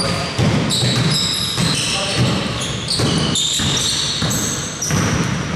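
Basketball game play: the ball bouncing on the court and sneakers squeaking in short high chirps, with players' voices.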